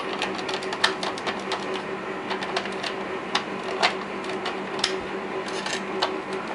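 Irregular clicks and taps of hard plastic as fingers work a figure into the tight cockpit of a Cobra Mamba toy helicopter and press its canopy hatch shut, with a few sharper snaps. A steady low hum runs underneath.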